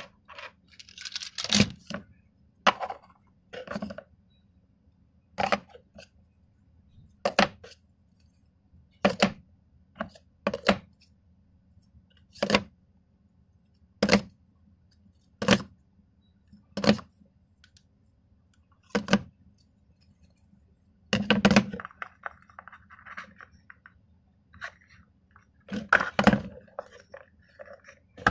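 Plastic sport-stacking cups clicking as they are handled one at a time: a sharp click every second or two, with a longer spell of rattling and handling about three-quarters of the way through and again near the end.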